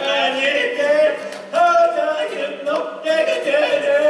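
Male voices singing a song loudly together on long held notes, with an acoustic guitar strummed along.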